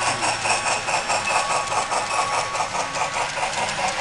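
Model train running past on the layout: a steam locomotive and its hopper cars going by on the track, making a steady mechanical sound with a rapid, even rhythm.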